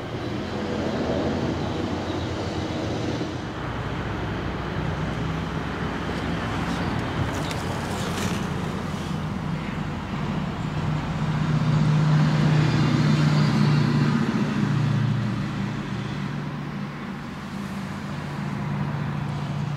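The twin-turbo V8 of a 2014 Mercedes-Benz E63 AMG S Wagon idling with a steady low hum, swelling louder for a few seconds a little past the middle.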